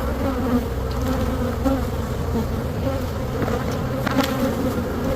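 Many honey bees buzzing around an opened hive: a steady drone that wavers in pitch, with a few light knocks about three to four seconds in.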